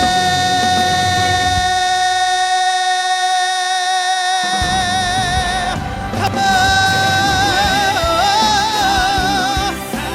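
Live male pop-ballad vocal over a band: the singer holds one long high note for about six seconds while the band's low end drops out for a couple of seconds and comes back, then sings on with a wavering vibrato phrase.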